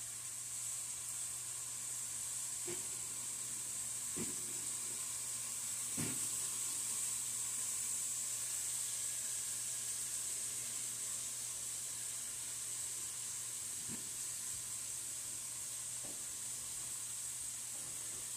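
Seasoned carne asada steak pieces sizzling steadily in a frying pan as they are turned over, with occasional light knocks of the spatula against the pan, the loudest about six seconds in.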